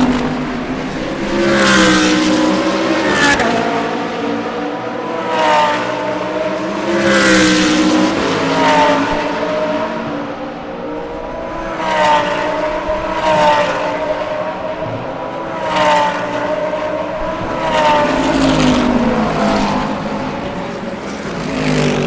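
Race cars passing one after another at high speed. Each engine note swells and then drops in pitch as the car goes by, about ten passes in quick succession.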